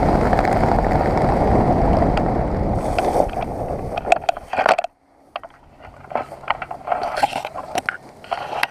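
Wind rushing over the camera's microphone during a parachute canopy descent, ending abruptly about five seconds in as the skydiver touches down. After that come scattered light rustles and clicks of canopy lines and fabric being handled.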